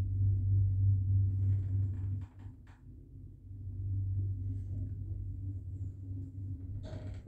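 Hydraulic lift machinery giving a steady low hum. The hum breaks off for about a second a little after two seconds in, then resumes, with a few faint clicks near the end.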